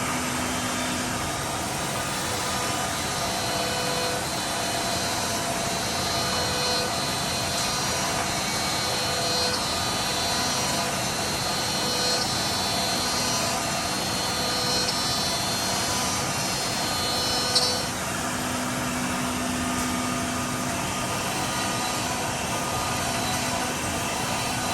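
CNC machine running steadily as it drills and cuts grooves, a continuous mechanical noise with several steady tones. There is a single sharp click about seventeen and a half seconds in.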